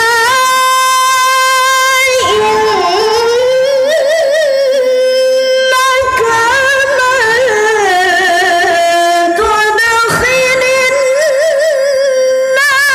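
A woman's voice reciting the Qur'an in the melodic mujawwad style, amplified through a handheld microphone, holding long ornamented notes with a quavering vibrato and breaking briefly for breath about two, six and ten seconds in.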